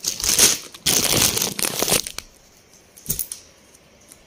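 Clear plastic packet of folded dress material crinkling as it is handled, for about two seconds, then a short rustle about three seconds in.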